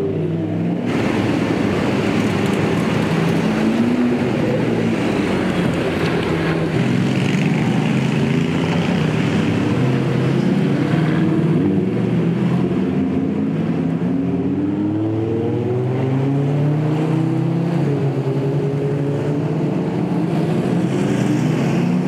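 Sports car and motorcycle engines accelerating past one after another. The engine notes keep rising and dropping as they change gear.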